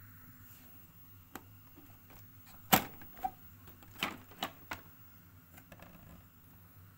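Handling knocks and clicks from a National NV-7500 VCR's opened chassis and case as it is moved and turned over: about six sharp knocks in the middle of the stretch, the loudest about three seconds in.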